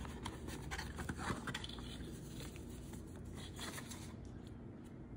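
Faint handling noises of a cardboard box and its paper manual being picked up: light taps and rustles, busiest in the first two seconds and quieter after.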